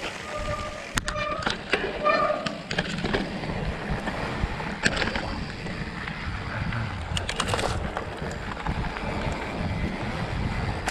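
Mountain bike rolling fast down a rocky dirt trail, heard from a handlebar-mounted camera: steady tyre rumble and rattling from the bike, with sharp clacks as it hits rocks, a cluster of them a little past halfway.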